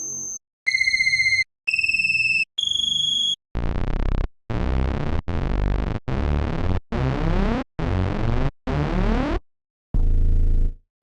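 A string of short synthesized sound effects for the cartoon rocket ship Rocket: three steady beeps stepping up in pitch, then a run of about seven short buzzy tones, ending on a louder low buzz.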